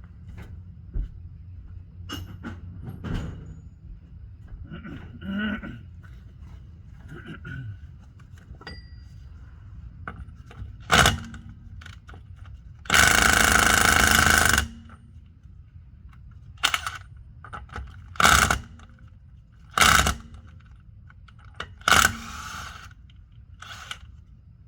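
Sharp metal-on-metal hammer blows, about five strikes a second or two apart, each with a short ring, while a CV axle is being worked loose. In the middle comes one burst of an air tool lasting under two seconds, the loudest sound in the stretch.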